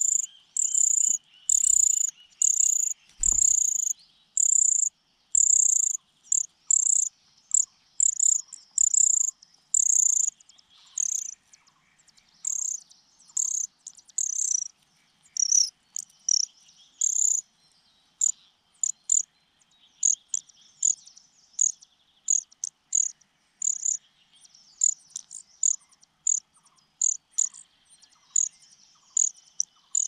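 Nestlings begging with high, thin cheeps in quick irregular series, close to the microphone. A single low thump about three seconds in.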